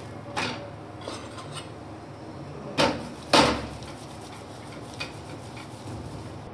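Steel spoon clinking and knocking against a tawa griddle while a paratha is flipped and pressed: a few scattered knocks, with the two loudest close together about three seconds in, over a steady low hiss.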